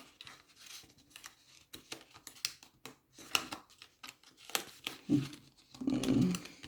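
Paper and cardstock rustling, with many short taps and clicks, as small cards are handled and slid in and out of the paper pockets of a handmade lapbook.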